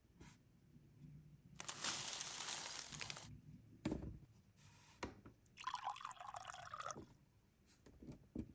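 Tiny plastic miniature pieces being handled and set down: a loud rustle about two seconds in, then two light clicks, and a short watery, wobbling sound shortly after.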